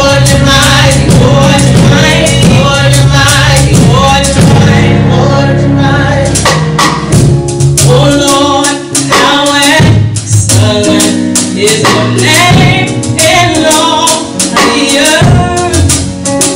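Live gospel praise song: several vocalists singing together at microphones over a band with a drum kit.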